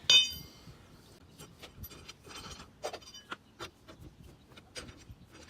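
A sharp metallic clank with a brief ringing tone right at the start, followed by scattered light clicks and rubbing: a steel lug wrench and lug nuts being handled at a car wheel during a tire change.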